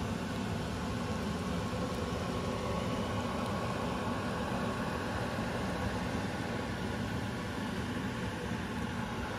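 Steady hiss with a low hum from a wok of pork and liver stew cooking on the stove.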